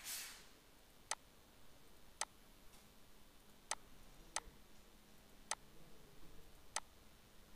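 Computer mouse button clicking: six single sharp clicks about a second apart, each placing a point of a CAD sketch line.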